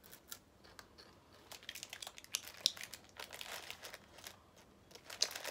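Crinkling of a small plastic snack packet being handled in the hands, a run of sharp crackles that becomes busier about a second and a half in.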